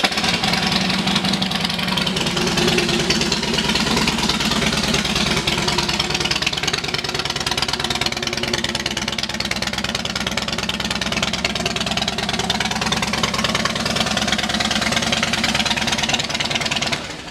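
A 2007 Harley-Davidson Heritage Softail Classic's 96 cubic inch V-twin, fitted with a Vance & Hines exhaust, idling steadily just after starting. It cuts off suddenly shortly before the end.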